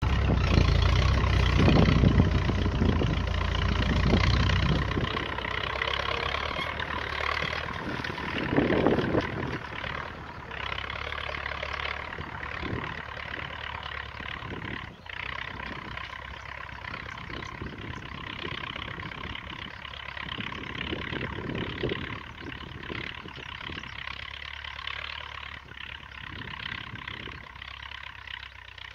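MTZ tractor's diesel engine running under load as it pulls a disc plow through the soil. It is loud close by for the first few seconds, then fades steadily as the tractor drives away.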